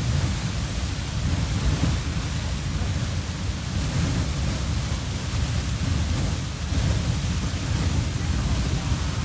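Beehive Geyser erupting: a steady, unbroken rush of water and steam jetting out, a broad hiss over a heavy low rumble.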